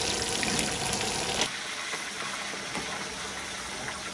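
Pieces of carp frying in hot oil: a steady sizzle with fine crackles, dropping abruptly to a quieter level about a second and a half in.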